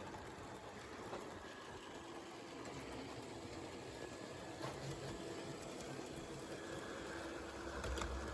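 Model locomotive running on the layout track: a faint, steady small electric motor hum with wheel noise, and a few light clicks near the end.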